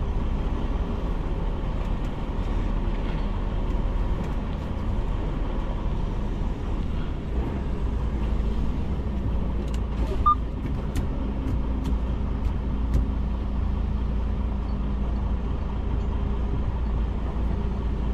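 Diesel semi-truck engine running, heard inside the cab as the tractor-trailer creeps and turns: a steady low rumble. About ten seconds in there is a short beep, with a few faint clicks around it.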